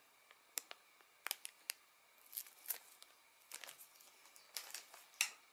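Small RC gearbox parts being handled: faint, scattered light clicks and a few brief rustles.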